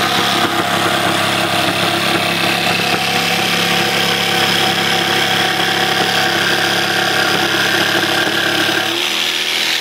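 Milwaukee M12 cordless jigsaw running steadily at speed, its reciprocating blade cutting through countertop. The low part of the sound drops away about nine seconds in.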